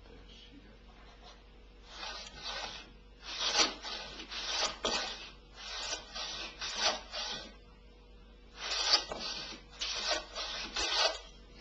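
Hand plane with a freshly sharpened and reset iron being pushed over wood in test strokes: a dry rasping swish for each stroke, about a dozen short strokes in four groups, starting about two seconds in.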